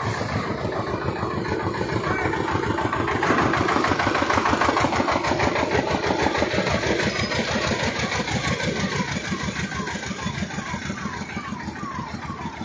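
A motor engine running with a fast, rattling pulse, growing louder a few seconds in and then easing off.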